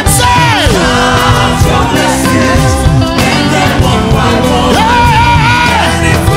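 Live gospel praise music: a lead singer and backing vocalists singing over a full band with a moving bass line, held and sliding sung notes.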